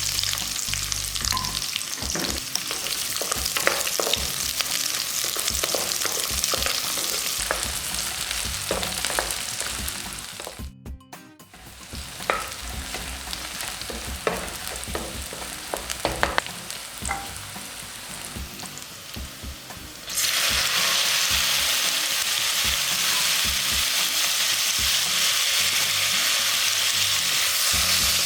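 Food sizzling in hot oil in a cooking pan, with scattered clicks of a utensil stirring against the pan. The sound drops out briefly about eleven seconds in, and about twenty seconds in the sizzle turns suddenly louder and steadier.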